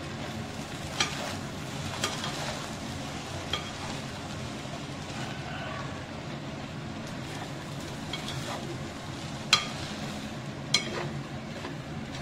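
Fried rice sizzling steadily in a nonstick pan while a steel spoon stirs and tosses it, with a few sharp clinks of the spoon against the pan, the two loudest late on.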